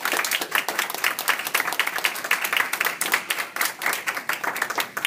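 Small audience clapping steadily after a speech.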